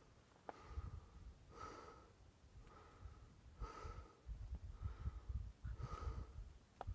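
A person breathing, in and out about once every two seconds, each breath with a faint whistle. Low rumbling gusts of wind hit the microphone underneath.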